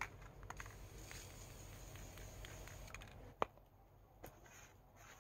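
Quiet handling sounds: a faint hiss for the first few seconds, then two small sharp clicks, as aerosol spray-paint cans are picked up and handled.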